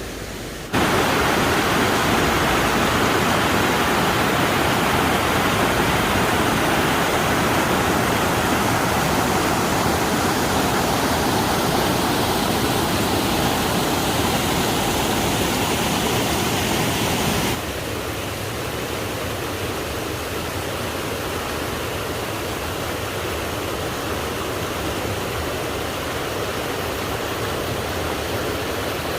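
Steady rushing water, a continuous even roar. It jumps louder about a second in, then drops suddenly to a quieter rush at about 17 seconds.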